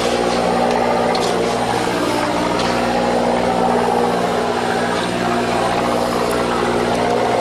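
A fishing boat's engine running at a steady hum, with a few faint clicks over it.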